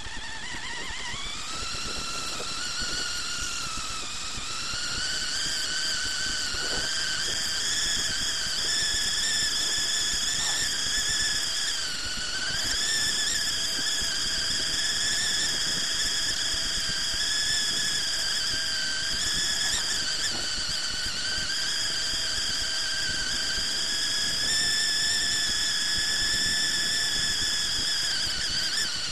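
A steady high-pitched whine from an FPV radio-controlled buggy as it drives. It rises in pitch over the first couple of seconds, then holds with a few brief dips.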